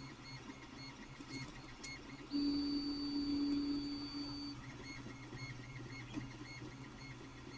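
Creality Ender 3 3D printer's stepper motors whining through a print, in short tones repeating about four times a second as the print head makes small moves. A couple of seconds in, one longer, louder steady tone lasts about two seconds before the short pulses resume.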